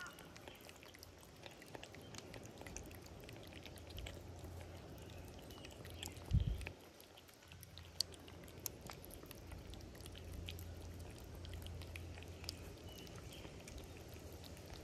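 Two cats eating from bowls close to the microphone: wet lapping, smacking and chewing with many small clicks. A low thump about six seconds in.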